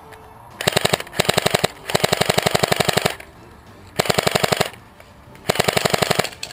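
H&K MP7A1 airsoft electric gun (AEG) firing on full auto in five short bursts, the longest a little over a second, each a rapid rattle of about fifteen shots a second.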